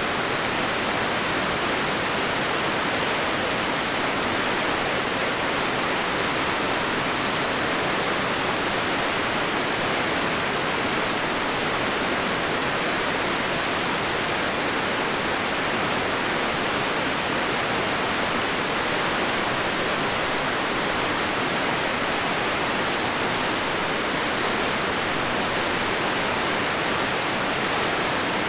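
Crystal River white water pouring over the falls, a steady, unbroken rush.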